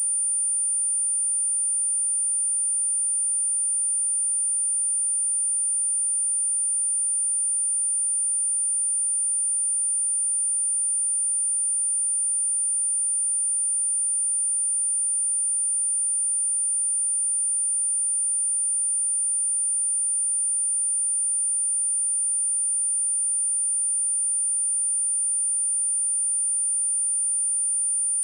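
A steady, high-pitched pure sine-wave test tone at 9244 Hz, held unchanged at one pitch and one level, as used to test speakers and shake water or dust out of them.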